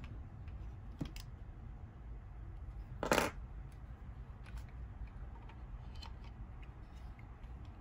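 Plastic LEGO bricks of a Volt Frigate model clicking and knocking as the model is handled and its sections moved, with a louder, noisy rattle of plastic lasting about a third of a second about three seconds in. A low steady hum sits underneath.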